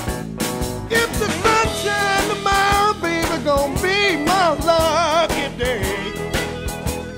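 Blues-rock band music in an instrumental break. A lead instrument plays sliding, wavering notes over a steady drum and bass beat.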